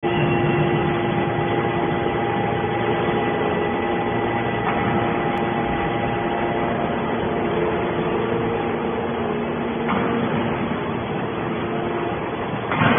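Hydraulic metal scrap baler running: a steady machine hum from its hydraulic power unit, with several steady tones over a noisy rush. A short louder rush comes near the end.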